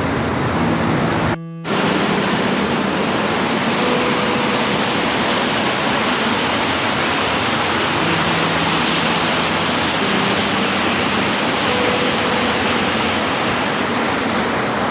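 Steady heavy rain, a dense even hiss, with a faint low hum underneath at times. The sound cuts out for a fraction of a second about one and a half seconds in.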